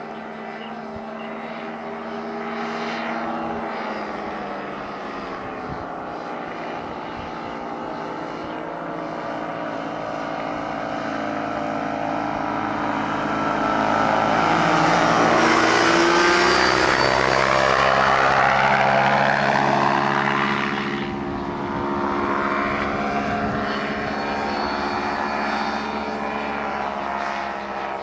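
Quicksilver MX-II ultralight's engine and propeller droning in a low flyby. It grows louder to a peak about halfway through as the aircraft passes close, then fades as it moves away.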